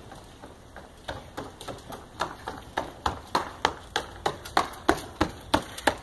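A child's shoes running on a concrete driveway: quick even footfalls, about three a second, growing louder as he comes closer.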